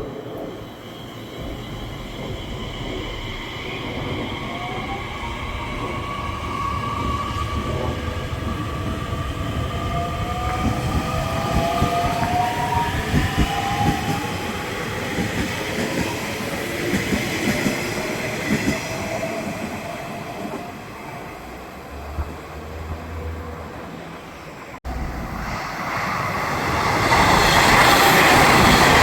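Electric commuter train running past: a motor whine that glides in pitch, over wheel rumble and clicking from the rail joints. About 25 seconds in the sound cuts abruptly to a louder rush of another passing train.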